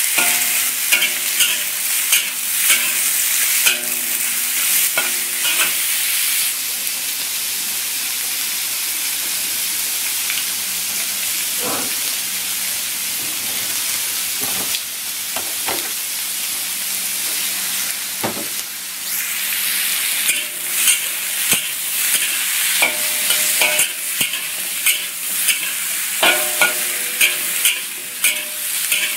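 Chicken wings and vegetables sizzling in a hot wok while a metal spatula stirs and scrapes them, clacking against the pan. The clacking stops for a while in the middle, leaving a steady sizzle, then starts again.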